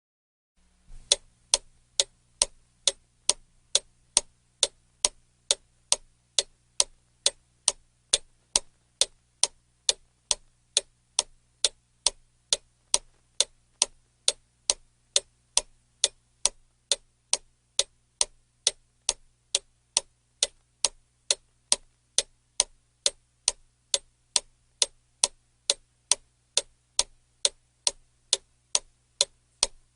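Clock ticking steadily, about two ticks a second, starting about a second in.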